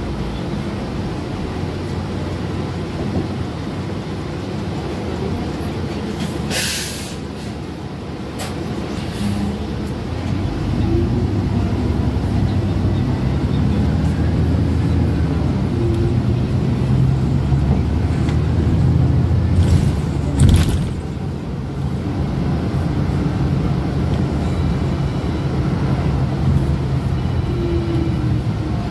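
City transit bus heard from inside the cabin: steady engine and road rumble that grows louder about ten seconds in, with a short hiss of air about seven seconds in and another brief burst about twenty seconds in.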